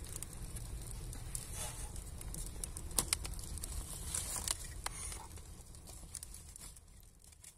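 Wood fire of sticks and kindling crackling, with a low rumble and scattered sharp pops, while the sticks are shifted by hand; it fades down near the end.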